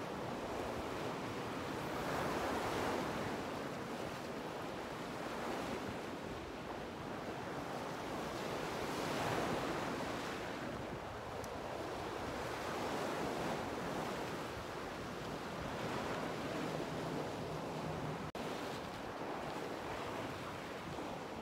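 Ocean surf breaking and washing over a rocky shore: a steady rush that swells and eases every few seconds as each wave comes in.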